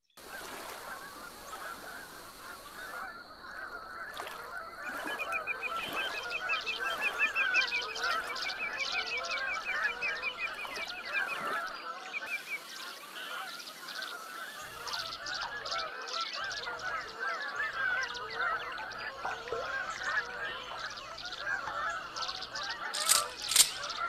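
A large flock of geese honking and calling continuously in a wetland, many voices overlapping, swelling over the first few seconds. A higher, fast trilling series from another bird runs through the middle, and a couple of sharp cracks come near the end.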